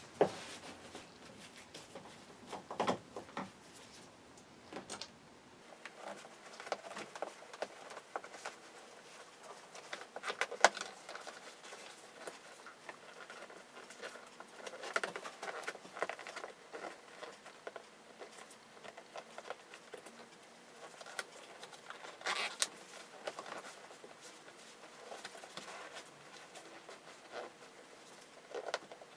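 Scattered small clicks, taps and rustles of hands working on a car seat's parts, loudest about ten seconds in and again near two-thirds through.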